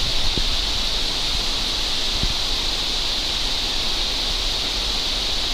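Waterfall rushing in a steady roar of falling water, with a couple of faint low thumps of wind on the microphone.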